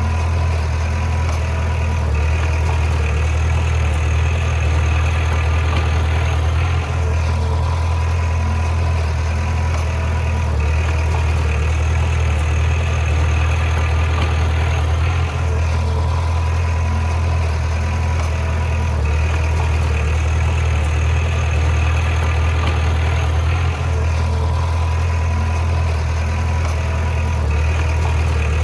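Bulldozer's diesel engine running steadily at a constant low drone, with a slight change in its sound about every eight seconds.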